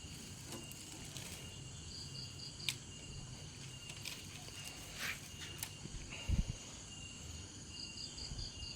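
Faint insects chirping in the background: a thin steady high trill with short bursts of rapid pulses. A few light clicks and a brief low thump about six seconds in.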